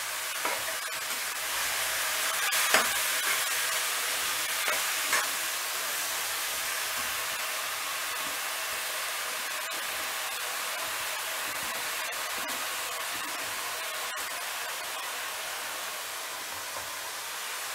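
Chopped mustard greens sizzling in hot oil in a steel kadhai over a high flame as more greens are added: a steady hiss. A few knocks of a steel spoon or colander against the pan in the first few seconds.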